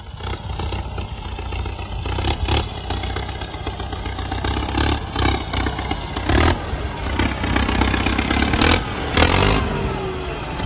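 Ford farm tractor engine running steadily, with several loud clanks and rattles over it.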